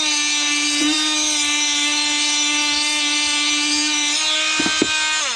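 Oscillating multi-tool running flat out with a steady high whine and a gritty hiss, its old toothed blade grinding against a metal cutting disc to wear the teeth down into a scraper. A couple of knocks come near the end, and the motor then winds down with falling pitch.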